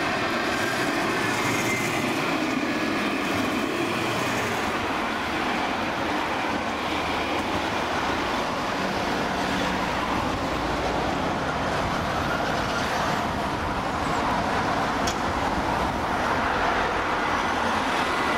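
Alstom Citadis light-rail tram running along street track, a steady rolling hum with a faint motor whine, mixed with road traffic; a van drives close by near the end.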